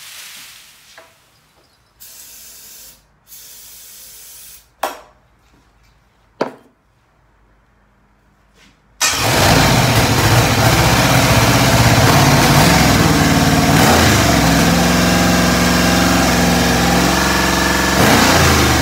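A GM LS V8 engine catches suddenly about halfway through and runs loudly and steadily, dying away right at the end. Before it there are two short steady hisses and two sharp clicks.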